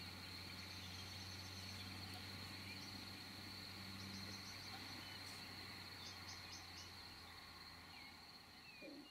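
Faint outdoor ambience: a steady high-pitched insect-like trill, a low hum beneath it, and a few short high chirps about six seconds in.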